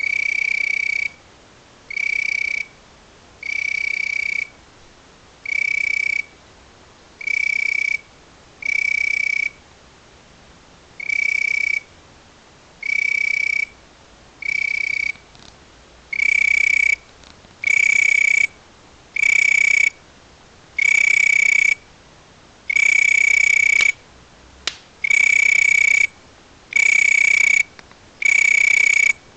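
A night-calling insect giving a high, steady, whistle-like note, about a second long and repeated roughly every two seconds; the notes grow louder and a little longer about halfway through.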